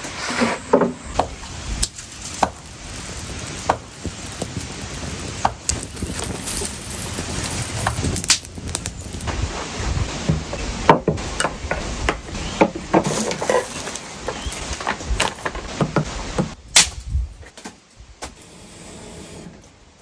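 Irregular knocks and clicks of a plastic basket being set down and opened and items taken out and put down on a wooden table, with one louder knock late on.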